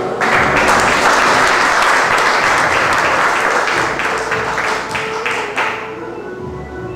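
Audience applause breaks out at once and lasts about six seconds, thinning to scattered claps before it stops. Steady performance music plays underneath.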